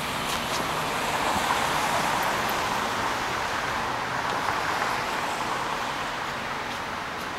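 Steady city street traffic noise, an even hiss with no single vehicle standing out, easing off slightly near the end.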